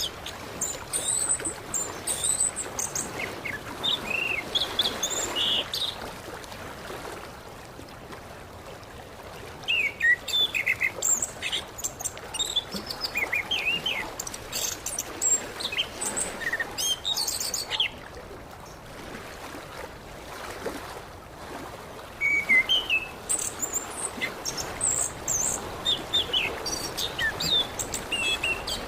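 Orange-headed thrush (anis kembang) singing in spells of quick, varied chirping and whistled phrases, with short pauses between spells, over a steady background hiss.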